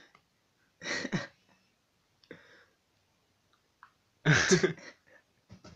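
A few short, breathy bursts of a person's voice: one about a second in, a faint one, then the loudest near the end.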